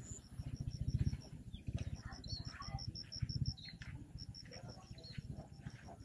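Outdoor ambience: a high, fast, even chirping call, about six or seven chirps a second, pausing briefly past the middle, with a few other scattered bird chirps over a low rumble that is loudest in the first second.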